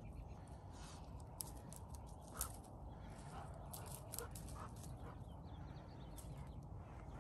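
Faint snuffling and rustling from two Weimaraners sniffing among rocks and dry brush, with a few scattered light clicks, over a low steady rumble.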